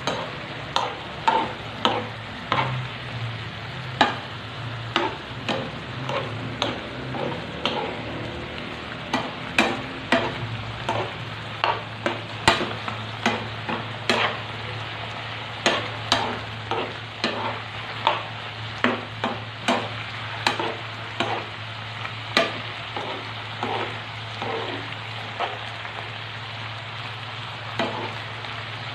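Chicken and mixed vegetables stir-frying in a pan: a steady sizzle, with a utensil scraping and knocking against the pan about once or twice a second as the food is stirred.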